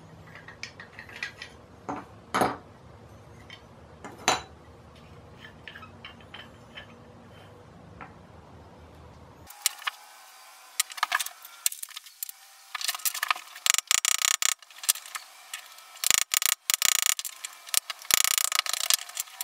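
Metal parts of a Stanley No. 120 block plane clicking and clinking as it is taken apart, with a few sharper knocks. From about halfway in comes a dense run of sharp metal taps and clinks as a pin punch is worked against the plane body to drive out its pins.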